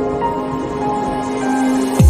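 Soft background music of slow, held notes.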